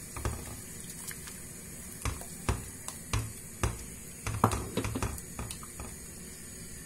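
Spatula stirring semolina into hot water in a cooking pot, knocking and scraping against the pan as the mixture thickens: a string of irregular clacks, busiest in the middle.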